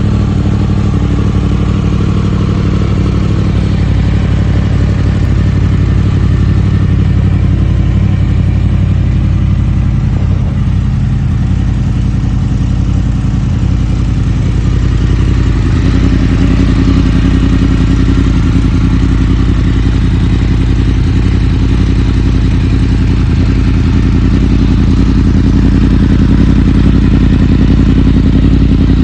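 2016 Yamaha YZF-R1's crossplane inline-four engine idling steadily through a Yoshimura aftermarket exhaust while it warms up, with no revving.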